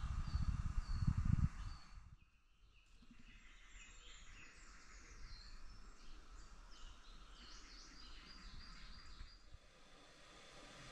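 Small woodland songbirds chirping and singing in short high phrases over a quiet background. A louder low rumbling noise on the microphone in the first couple of seconds cuts off abruptly.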